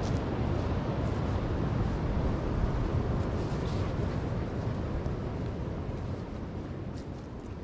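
Steady rush of surf and wind buffeting the microphone, growing gradually fainter over the last few seconds.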